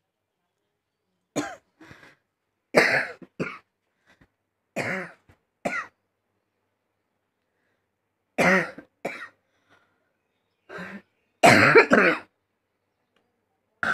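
A person coughing in a series of short, separate coughs with silent gaps between them, loudest in a cluster near the end.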